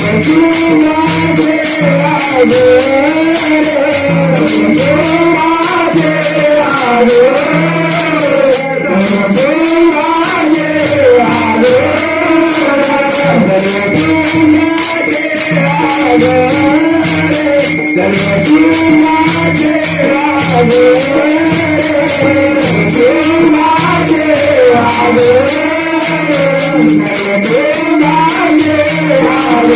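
Marathi devotional bhajan (a gaulan): a male voice singing a wavering melody over a steady held drone, with jingling hand cymbals and drum keeping a continuous rhythm.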